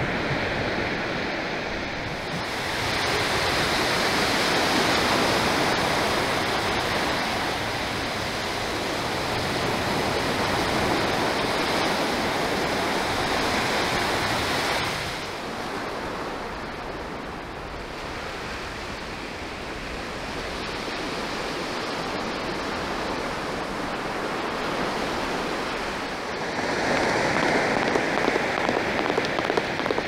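Surf washing onto a flat sandy beach: a steady rush of water that swells for about ten seconds, eases off about halfway, and swells again near the end.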